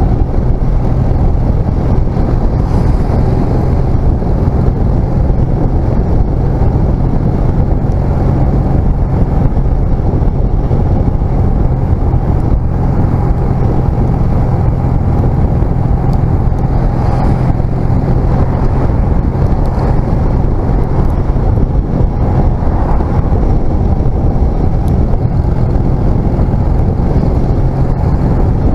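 Honda CMX250C Rebel's air-cooled parallel-twin engine running at a steady road speed, heard from a handlebar-mounted camera, with wind noise over the microphone and the rush of the ride.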